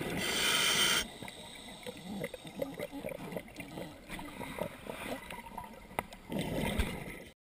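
Underwater sound of a scuba diver's regulator: a hiss of breath drawn through it for about the first second, then gurgling and scattered small clicks, and a rush of exhaled bubbles near the end.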